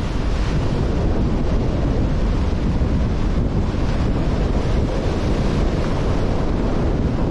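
Strong wind buffeting the microphone with a heavy low rumble, over rough sea surf breaking on the shore.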